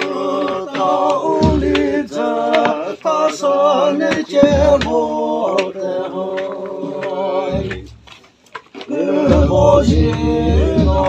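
A group of Naga men singing a traditional song together, unaccompanied, in long held notes. The singing breaks off about eight seconds in and starts again a second later.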